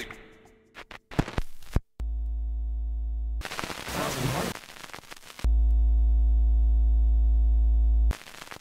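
Electronic soundtrack: a steady low buzzing synthetic tone held for about a second and a half, a noisy swell, then the same tone again for nearly three seconds, cutting off suddenly.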